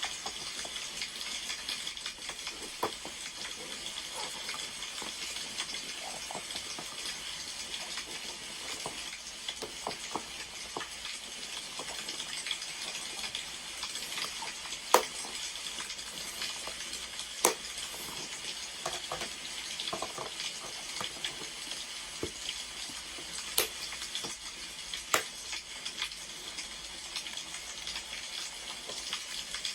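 Wood fire crackling: a steady hiss with scattered sharp pops, the loudest four spread through the second half.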